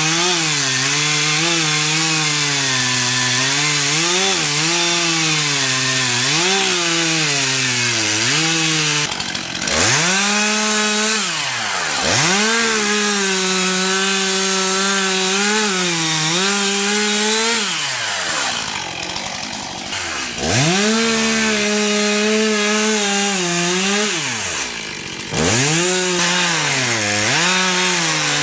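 Chainsaw making the felling cuts into a tree trunk, the gob (face notch) and back cut, its engine pitch sagging and recovering under load. The throttle eases off briefly three times.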